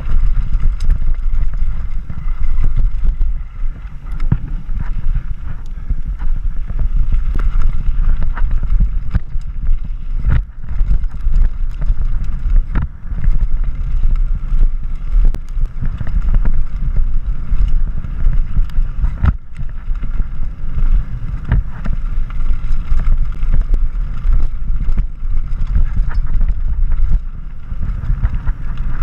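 Wind buffeting the microphone of a mountain bike rider descending a loose dirt-and-gravel trail, with tyres rolling over the gravel. Frequent sharp clacks and rattles come from the bike over rocks and bumps, the strongest about two-thirds of the way through.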